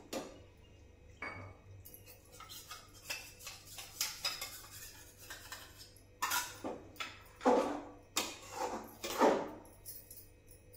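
Metal ladle stirring cornflour-thickened gravy in a steel kadai, scraping and clinking against the pan. The strokes turn louder and come in a quick run from about six seconds in.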